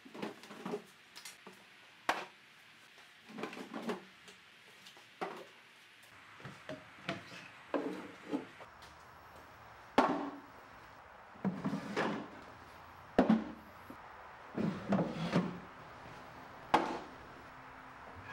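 Wooden drawers being slid out of a walnut mid-century credenza and set down on top of one another: a string of irregular wooden knocks and clunks with short sliding scrapes of the drawers between them, the sharpest knock about ten seconds in.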